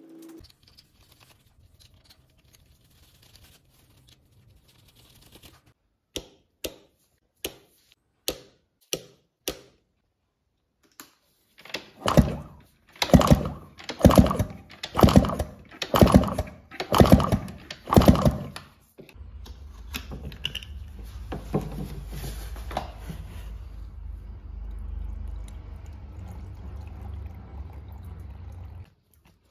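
A row of sharp clicks, then a run of about seven loud strokes roughly a second apart as the 2004 Husqvarna WR125's two-stroke engine is kicked over with its spark plug out, laid against the head for a spark check. After that, water is poured into the radiator over a steady low rumble.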